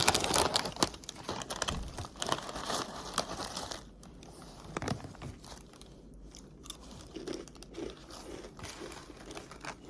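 A bag of chips crinkling as it is opened and handled, loudest in the first few seconds, followed by quieter crunching and chewing of the chips.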